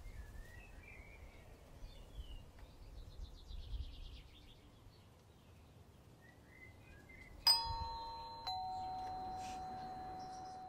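Faint birds chirping, then a two-tone ding-dong doorbell chime: a bright high note struck, then a lower note about a second later that rings on and slowly fades.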